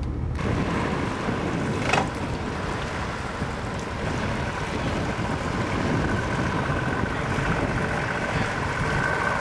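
Pontoon boat's outboard motor running at low speed, a steady whine over a rushing noise, with a single knock about two seconds in.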